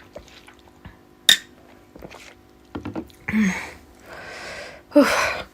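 A sharp clink of dishware about a second in, then short breathy sounds from the eater: puffs of breath and mouth noise, the loudest a breathy exhale near the end.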